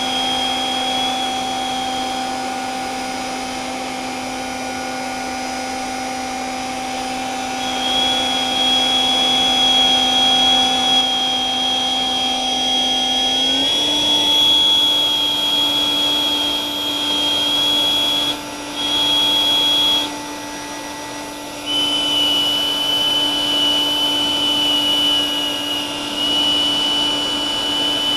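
Freewing Yak-130's 12-blade 70mm electric ducted fan running steadily on the bench, stepping up slightly in pitch about halfway through. Over it, a Nerf Vortex Howler whistle held in the exhaust gives a high, steady whistle that cuts in and out several times as it is moved around the nozzle to find where it sounds.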